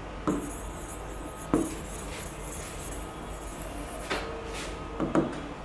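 A few light taps of a stylus on an interactive touchscreen board, spaced out over a faint steady hum.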